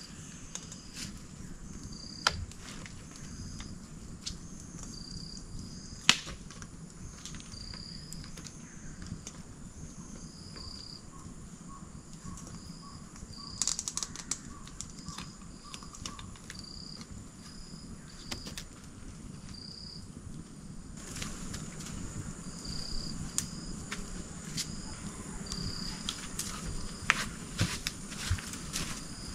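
Forest ambience: a short high chirp from an insect or bird repeats about once a second, with a run of quicker, lower notes for several seconds around the middle. A few sharp knocks or clicks cut through, the loudest about six seconds in.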